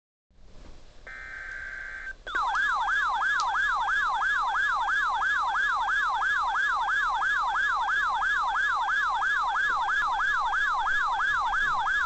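Weather alert radio receiver sounding its siren alert for a severe thunderstorm watch: a loud, fast warbling tone sweeping up and down about three times a second. About a second in it is preceded by a brief buzzing data burst.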